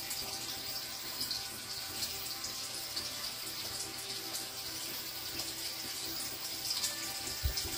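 Steady rushing hiss of circulating water in a fish tank, with a low thump near the end.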